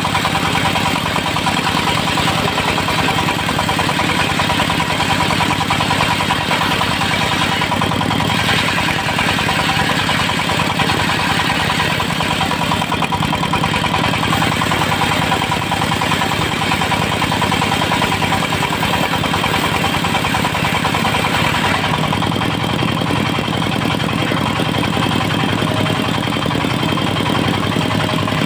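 Diesel engine of a portable circular-saw sawmill running steadily, driving the spinning saw blade. A harsher, brighter noise joins from about 8 seconds in to about 22 seconds, when the blade is cutting teak.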